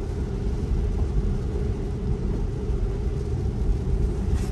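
Steady low rumble of a Tesla rolling on a wet road, heard from inside the cabin: tyre and road noise with no engine sound.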